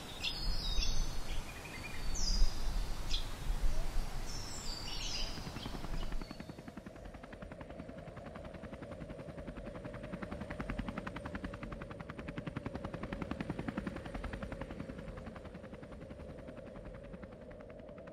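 Birds calling with short sweeping chirps for the first few seconds. Then a helicopter takes over: a rapid, even chop of the rotor over a steady engine whine.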